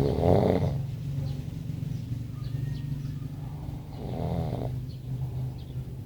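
Snoring: one snore right at the start and another about four seconds in, each lasting well under a second, with a steady low hum between them.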